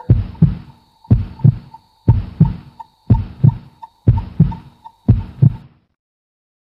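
A slow heartbeat, six low double thumps about once a second, which stops abruptly near the end, over a faint steady high tone.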